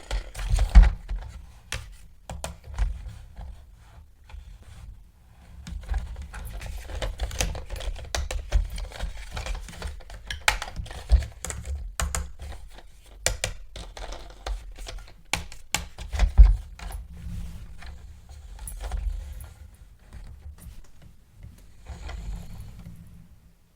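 Hands handling plastic toys and packaging: irregular clicks, taps and rustles with dull knocks against a hard surface, the loudest about a second in and about sixteen seconds in.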